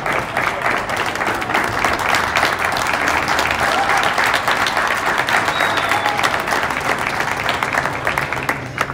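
Audience applauding in a large hall, a dense, steady clapping that dies away near the end.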